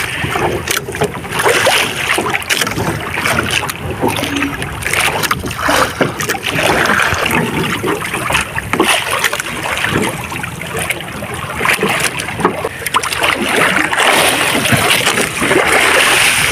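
Sea water splashing and slapping against the hull of a wooden outrigger boat, a steady dense wash with many irregular splashes.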